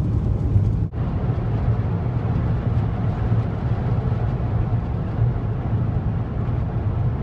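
Steady road and engine noise inside a Volkswagen Vanagon camper van driving at road speed, briefly dropping out about a second in.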